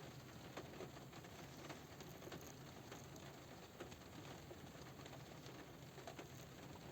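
Light rain pattering on a car roof, heard from inside the car: a faint steady hiss with scattered individual drop ticks.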